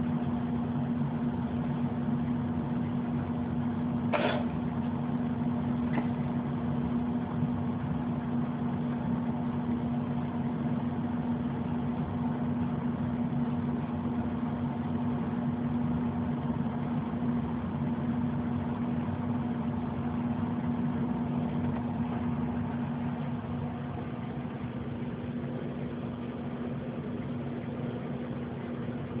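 Steady mechanical hum with a constant low tone, from a running motor or appliance, with a short sharp click about four seconds in.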